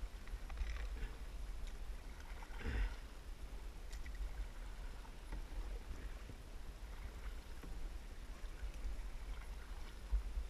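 Kayak paddle dipping and pulling through slow river water, with a couple of louder splashes in the first few seconds, over a steady low rumble.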